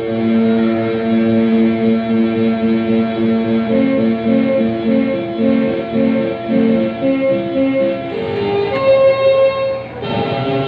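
Electronic keyboard playing single notes in a guitar-like voice with distortion, with a run of short repeated notes in the middle. The tone changes near the end, as a different built-in voice sounds.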